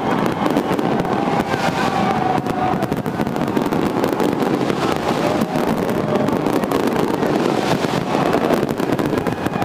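Fireworks going off in a dense, continuous run of pops and crackles.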